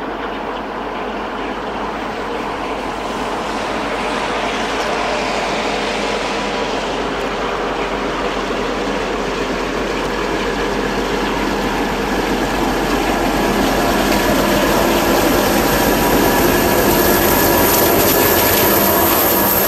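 DB Class 233 'Ludmilla' diesel locomotive with its twelve-cylinder Kolomna 12D49M engine, hauling a freight train of tank wagons. Its steady engine drone grows louder as it approaches and comes close by near the end, when a thin high whine from the wheels joins in.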